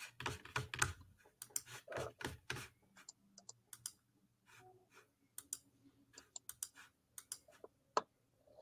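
Faint typing on a computer keyboard in irregular keystrokes: a quick flurry in the first three seconds, then scattered taps, with one sharper click about eight seconds in.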